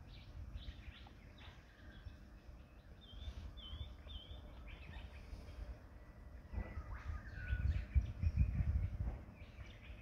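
Several wild birds calling: a run of three quick, repeated high notes about three seconds in and a held whistle a few seconds later, among scattered chirps. A low rumble underneath swells in the second half.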